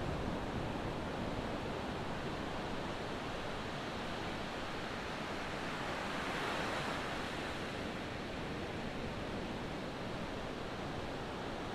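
Ocean surf: a steady wash of breaking waves, swelling about six seconds in as a wave breaks and then settling back.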